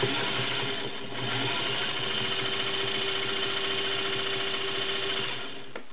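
Singer Featherweight 221-1 sewing machine running on its motor, freshly lubricated and running nice and smooth. It eases off briefly about a second in, picks up speed again, and stops near the end.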